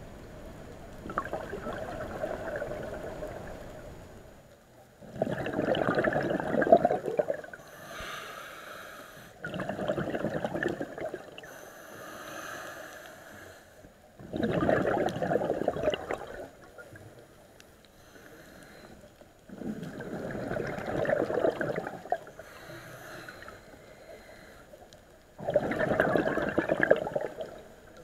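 Scuba diver breathing through a regulator underwater: loud bursts of exhaled bubbles about every five seconds, with the softer hiss of each inhalation between them.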